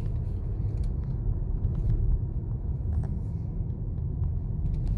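Steady rumble of a car driving at low speed on a paved road, heard from inside the cabin: tyre and engine noise.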